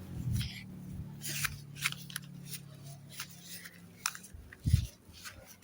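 Irregular small clicks and scraping handling noise, with a single dull thump about three-quarters of the way through.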